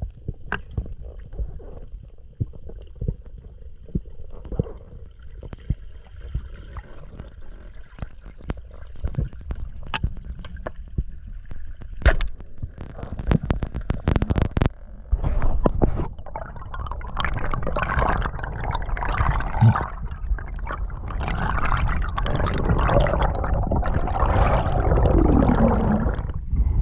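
Underwater sound picked up by an action camera in its waterproof housing. Scattered clicks and knocks sound over a low rumble at first, with a cluster of sharp clicks about halfway. From just past halfway a louder rush and bubbling of water builds as the diver swims up toward the surface.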